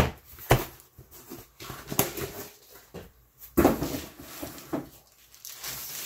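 Handling noise as a CGC-graded comic slab is unwrapped from its packaging: a few sharp clicks and knocks, then rustling of the wrapping twice.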